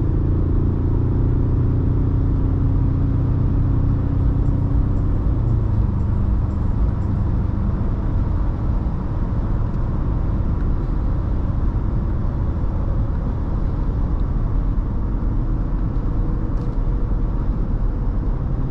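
Ford Ranger Raptor driving, heard from inside the cabin: a steady low engine hum over road rumble. The engine tone fades about halfway through, leaving an even rumble of tyres and road.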